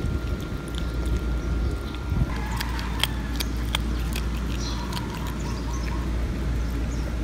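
Cats chewing fried tilapia, crunching the fish bones, with a run of sharp crunches and crackles a couple of seconds in. A steady low rumble lies under it.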